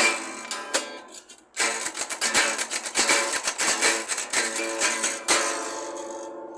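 A strummed acoustic string instrument playing solo. One chord is struck and dies away, then comes a run of fast strumming, ending on a chord about five seconds in that rings out and fades.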